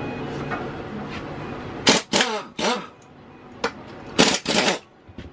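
An impact wrench on the tractor's rear wheel hub firing in short bursts, undoing the wheel nuts to pull the wheel: about three quick bursts about two seconds in, then three more near the end, each winding down with a falling whine.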